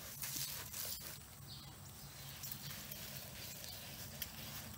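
A dog digging in loose sandy dirt with its front paws, making quick, irregular scratches as the dirt is flung back. A faint, steady low hum runs underneath.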